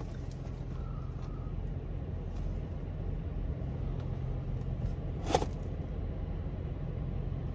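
Steady low hum of a car running while parked, heard from inside the cabin, with one short click about five seconds in.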